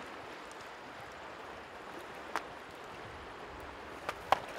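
Steady flow of a shallow river over stones, with a few sharp clicks: one about halfway through and two close together near the end, the last the loudest.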